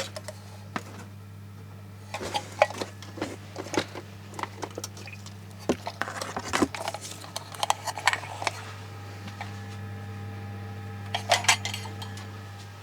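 Hard electronic parts and small pieces of equipment clinking, clicking and knocking as they are handled and rummaged through in a box, in irregular clusters over a steady low hum.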